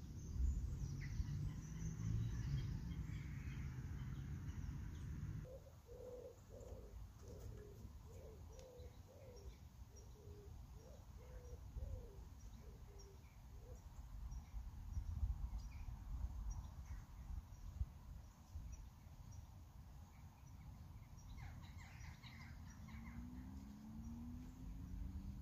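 A pigeon cooing: a run of about a dozen low, evenly spaced coos lasting several seconds, starting about five seconds in. Small birds chirp faintly in the background, and wind rumbles on the microphone at the start.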